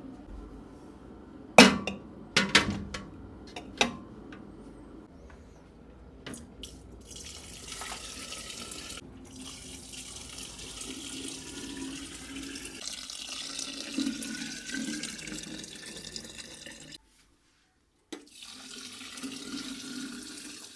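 A few sharp glass clinks, then water running steadily into a container, a faint tone in it slowly rising in pitch as the vessel fills. It breaks off for about a second near the end and then resumes.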